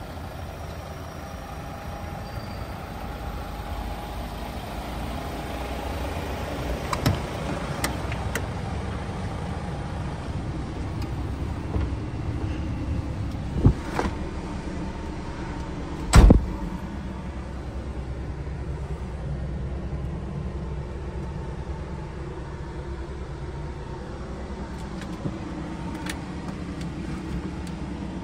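DAF XF480 truck's six-cylinder diesel engine idling steadily, with a few sharp knocks and thuds over it; the loudest comes about halfway through.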